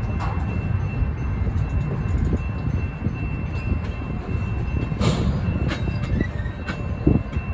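Empty intermodal well cars of a freight train rolling past: a steady low rumble of steel wheels on rail, with sharp clanks and rattles from the cars about five seconds in and again near the end.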